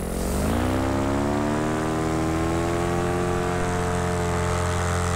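Macfly paramotor's two-stroke engine and 140 propeller throttling up, the pitch rising over the first second or so and then holding steady at high throttle.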